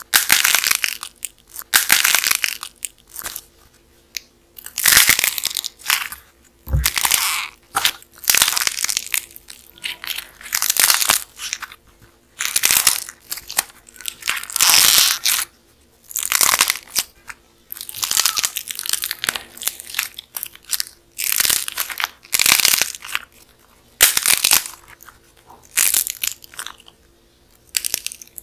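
Dried clay crust crackling and crunching as hands squeeze and break apart a clay hotdog model, in repeated bursts about a second apart with short pauses between.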